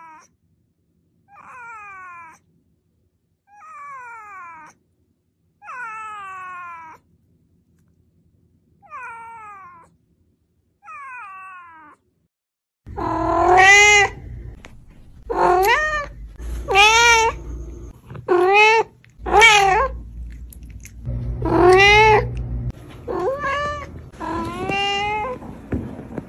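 Domestic cats meowing. First comes a white cat's series of about six separate meows, each about a second long and sliding down in pitch. From about 13 s in, a kitten gives a louder run of meows, roughly one every second or so.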